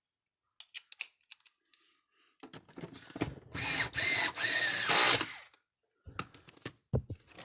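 Power drill/driver running for about three seconds, driving the special screws into a fence energizer's case, its motor pitch wavering as it runs. Scattered handling clicks come before and after.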